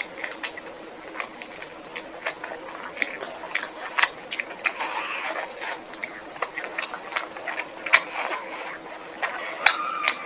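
Close-miked eating: a person chewing and biting food, with a stream of irregular wet clicks and crunchy crackles. A short pitched sound comes near the end.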